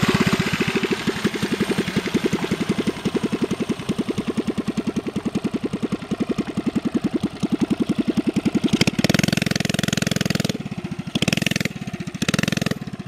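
Coleman CT100U mini bike's small single-cylinder engine running with a fast, even beat of firing pulses. About nine seconds in the sound fills out and comes in a few surges with short dips between them, as the throttle is opened and closed.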